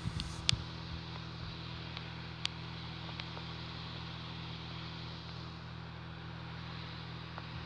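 Homemade slime pulled and dropped onto a wooden tabletop, giving a few short sticky clicks and pops, the sharpest about half a second in and again about two and a half seconds in. A steady low hum and hiss runs underneath.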